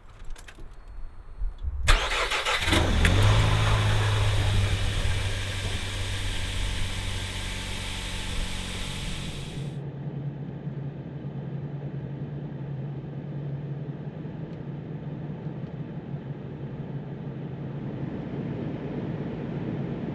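A few clicks, then an engine starts about two seconds in, rises briefly and settles into a steady run. A loud hiss over it cuts off suddenly about ten seconds in while the engine keeps running.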